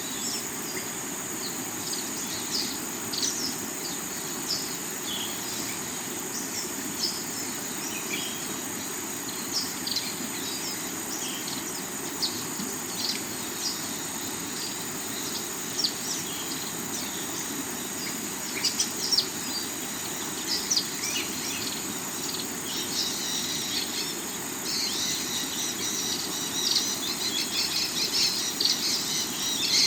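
Water rushing steadily over the rocks of a river, with many short bird chirps and a thin, steady high insect drone over it. Bird chatter grows denser and louder over the last few seconds.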